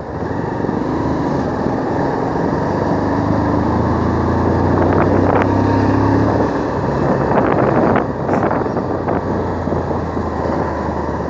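Bajaj Pulsar motorcycle engine running under way, heard from the rider's seat, with road and wind noise. The engine note holds steady and strong through the middle, then drops about eight seconds in.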